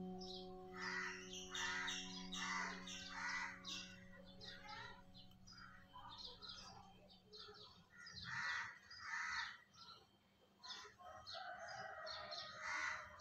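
Birds chirping repeatedly in short, faint calls. A low steady hum fades out about halfway through.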